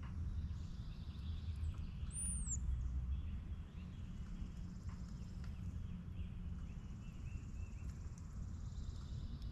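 Outdoor ambience: a steady low rumble under faint, scattered songbird calls, with one short, very high whistled note that rises and falls a little over two seconds in.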